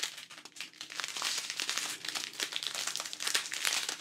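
A strip of thin, sealed clear plastic bags of diamond painting drills crinkling as it is handled, an irregular run of crackles.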